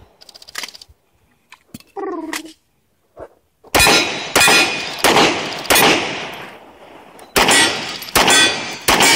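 Handgun shots fired at steel targets: after a pause of about three and a half seconds, about eight shots, four evenly spaced and then, after a short pause, four more in quicker succession, each trailing off in a long ringing echo.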